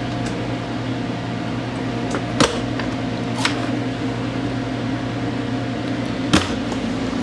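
Metal clunks of a stainless steel refrigerated cabinet door and its latch being worked, about two and a half seconds in, a lighter click about a second later, and another clunk near the end as the door shuts. Under them runs a steady machinery hum with a few fixed tones.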